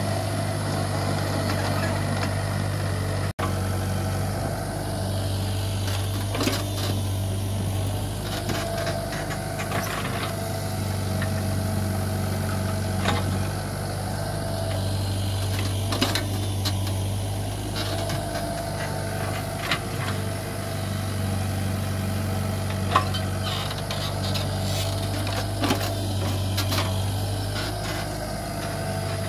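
Komatsu PC75 mini excavator's diesel engine running steadily as the machine pushes and lifts soil, with scattered sharp knocks and clanks from the working machine.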